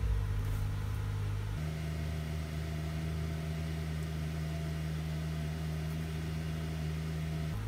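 A steady low machine hum that shifts in tone about a second and a half in.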